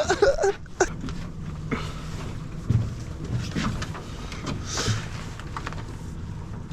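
Boat motor running steadily at low speed, a low even hum, with a few faint knocks and distant voices over it.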